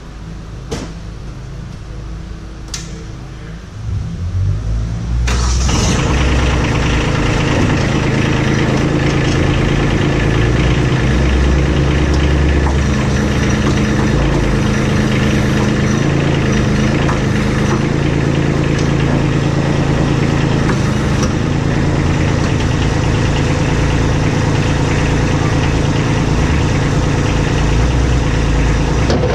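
A couple of clicks, then a compact tractor's engine is started about five seconds in and runs steadily. Its note shifts now and then while the front-mounted snowblower is raised and angled on the hydraulics.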